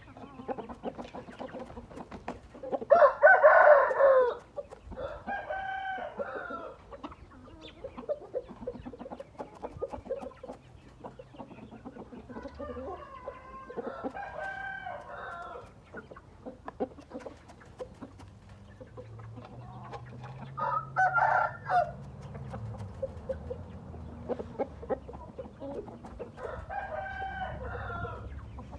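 Gamefowl roosters crowing, about five crows spread out, the loudest about three seconds in and another strong one about twenty seconds in.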